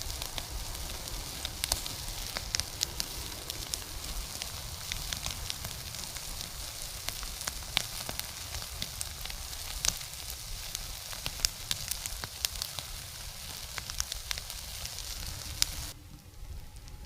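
Fire of burning beehive parts and beeswax, a steady sizzle with many sharp crackles and pops. About 16 s in it gives way to a quieter, different background.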